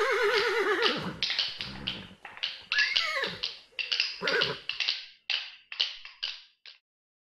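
A horse whinnying, the call wavering in pitch as it dies away. It is followed by a string of short snorts and snuffles that grow fainter and stop.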